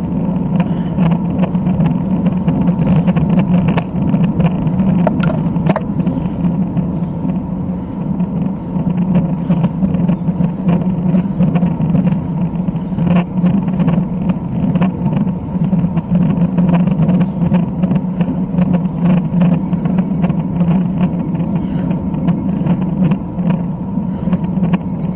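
Steady riding noise of a road bike on the climb, a continuous low rumble of tyres and wind with frequent small rattles and clicks, and a hiss that grows louder in the second half.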